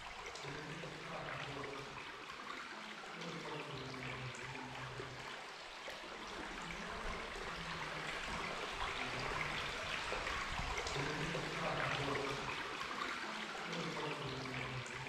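Steady rushing and trickling of water in a sea cave, with low held tones that swell and fade every second or two underneath.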